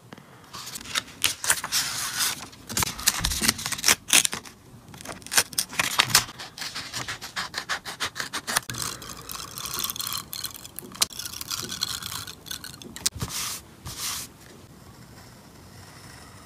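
Scissors cutting through a sheet of printed paper close to the microphone: a dense run of crisp snips and paper scraping. It drops to a faint scratching a couple of seconds before the end.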